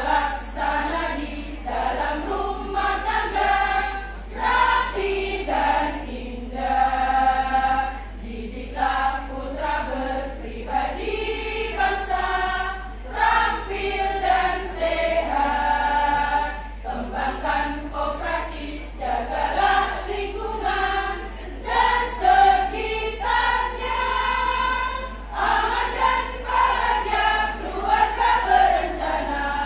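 A women's choir of about nineteen voices singing a PKK choral song together, phrase after phrase.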